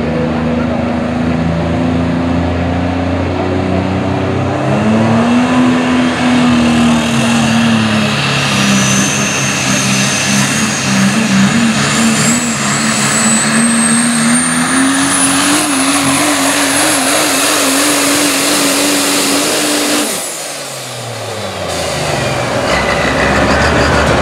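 Super stock diesel 4WD pulling truck making a pull: the engine revs up about five seconds in and runs hard under load, its turbo whistle climbing steadily higher. About twenty seconds in the engine is shut off the throttle all at once, and the revs and turbo whine wind down.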